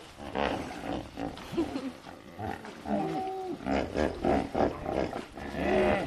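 Hippopotamuses calling from the water: a series of deep grunts and honks, breaking into a quick run of pulsing grunts in the second half.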